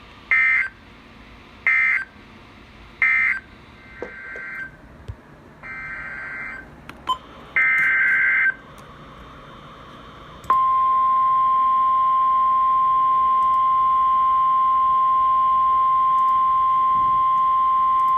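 Emergency Alert System broadcast tones from NOAA Weather Radio: three short, loud data bursts of warbling digital tones marking the end of the previous alert, then three further, longer data bursts that begin the next alert. About ten seconds in, the steady single-pitch weather radio warning alarm tone of about 1050 Hz comes on and holds for roughly nine seconds.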